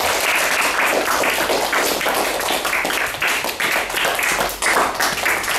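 A group of children applauding, many hands clapping unevenly and steadily.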